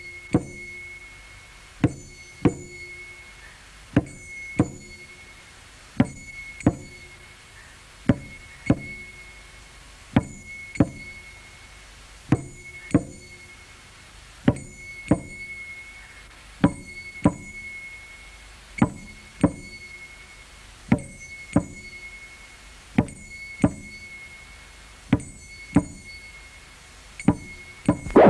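Sharp knocks or chops coming in pairs, each pair about two seconds after the last in an even rhythm, over a faint steady high tone.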